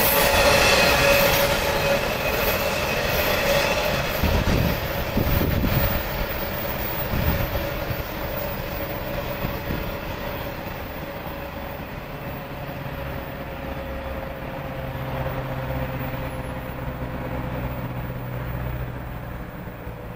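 Intermodal freight train of truck trailers on flatcars rolling away on the rails, its wheels squealing in a thin tone that slides slowly down in pitch. The sound fades steadily as the end of the train draws off.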